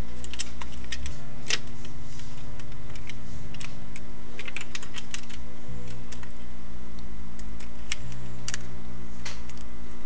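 Small screwdriver and screws clicking and tapping against a laptop hard drive's mounting hardware as the screws are driven back in: irregular light clicks, several a second at times, over a steady low hum.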